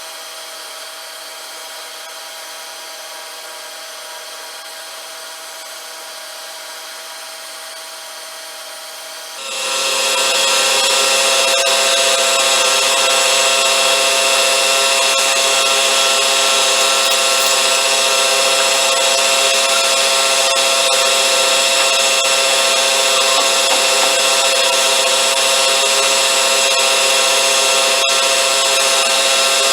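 A machine-shop tool runs steadily, its noise carrying several steady tones. Just over nine seconds in it grows sharply louder and then holds steady.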